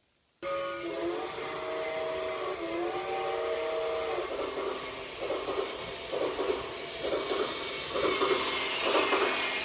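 Battery toy steam train's electronic sound effects switching on suddenly: a chord steam whistle for the first few seconds, then a steam chuffing sound repeating about once a second.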